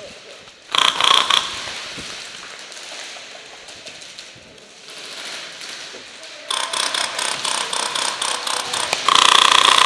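Electric airsoft guns firing on full auto: rapid mechanical clicking bursts, a short one about a second in and sustained fire from about six and a half seconds. A loud, held pitched sound comes in over the fire near the end.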